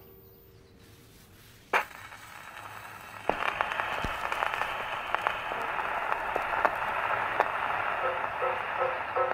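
Muffled crackling hiss like worn vinyl record surface noise, starting suddenly about three seconds in and laced with small pops, after a single sharp click a little before that. A few soft music notes come in near the end.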